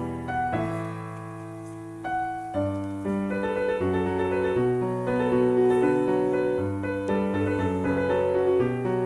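Background piano music: a gentle melody over sustained chords, thinning to a held chord for about a second before new notes come in.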